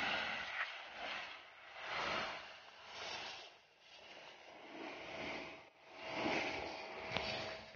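High-pressure water jet from a pressure-washer wand hissing against the bark of a large banyan bonsai trunk. It rises and falls every second or two as the jet is swept over the wood.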